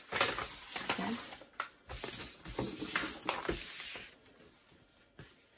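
Sublimation transfer paper rustling and sliding on a tabletop as it is handled and smoothed flat, in uneven bursts that stop about four seconds in; a single small click follows near the end.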